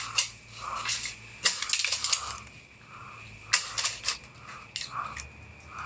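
Footsteps pushing through garden undergrowth: irregular crunching and rustling of leaves and stems.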